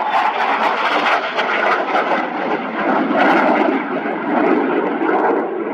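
F-35B Lightning II's single Pratt & Whitney F135 turbofan running at high power as the jet passes and banks overhead: a loud, steady jet roar with a rapid crackle through it.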